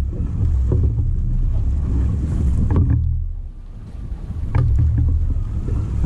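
Strong wind buffeting the microphone, a low rumble that eases off briefly around the middle, with a few light knocks.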